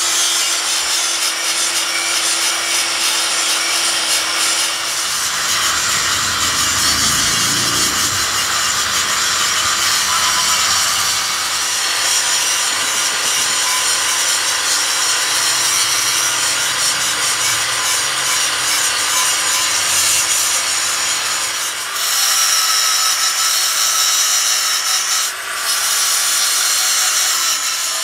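Electric angle grinder with a thin cut-off disc cutting into the steel teeth of a large ring gear: a steady, loud grinding hiss over the motor's even whine, easing briefly twice near the end.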